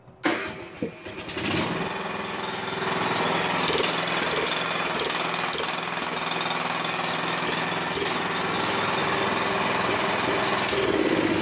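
Honda GX single-cylinder small engine started with its key-switch electric starter: a click, about a second of starter cranking, then the engine catches and runs steadily. This is the first test of the newly wired electric start.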